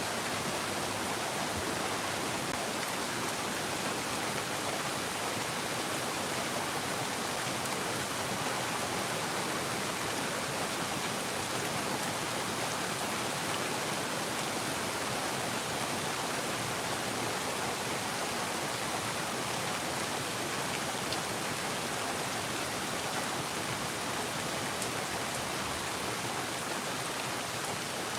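Steady rain falling, an even, unbroken hiss of rainfall with no thunder.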